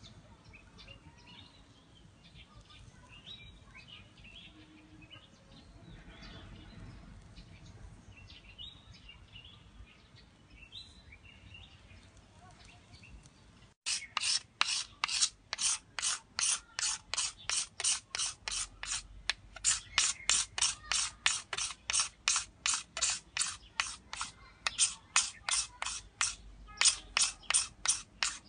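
Faint at first, then from about halfway a blade scraping the green skin off a thin bamboo cane in quick, even strokes, about three a second, with a short pause near the end.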